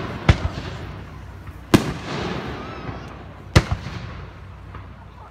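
Aerial firework shells bursting: three sharp bangs, roughly one and a half to two seconds apart, each followed by a lingering crackling trail.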